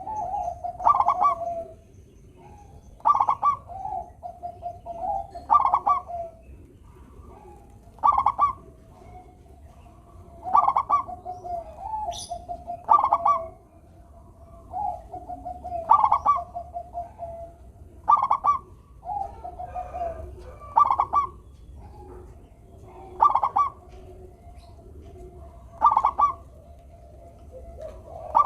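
Zebra dove (perkutut) singing its cooing song: a short rolling burst followed by a lower trailing coo, repeated about every two and a half seconds.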